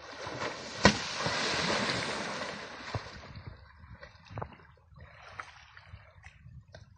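Water splashing as an Asian elephant rolls and heaves itself up in a muddy river. It is loudest over the first three seconds, with a sharp slap about a second in, then fades to lighter sloshing.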